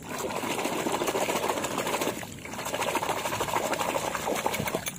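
Muddy water in a basin splashing and sloshing as a hand rapidly swishes a toy vehicle back and forth to wash off the mud. It comes in two bouts with a short pause about two seconds in.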